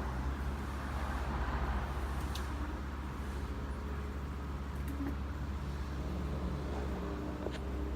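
Steady low rumble of road traffic, with a couple of faint short high ticks about two and a half seconds in and near the end.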